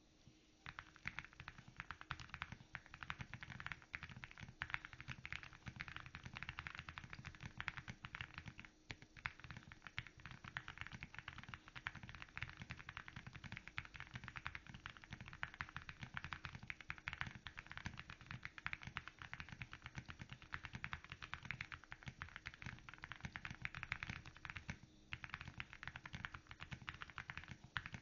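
Continuous fast typing on a Womier SK65 gasket-mounted mechanical keyboard with WS Morandi switches, Akko MOA-profile keycaps and full foam inserts. The keys clack densely, with brief pauses twice.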